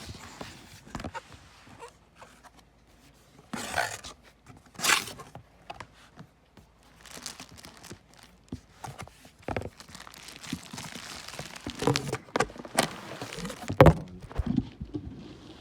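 Cardboard box being cut and torn open by hand, with two loud scratchy tearing bursts about four and five seconds in, then rustling and knocks as the box is handled, the loudest thunk near the end.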